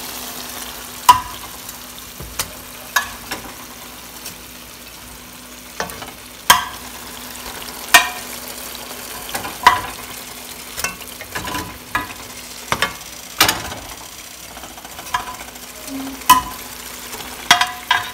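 Chicken drumsticks sizzling in a nonstick frying pan of hot oily onion and spice base as they are added and turned with a wooden spoon, with about a dozen sharp knocks spread through it as pieces go in and the spoon strikes the pan.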